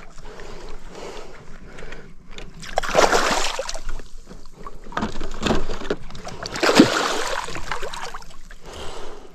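Water splashing and sloshing as a hooked snakehead thrashes at the surface, with two louder bursts of splashing, about three seconds in and again near seven seconds.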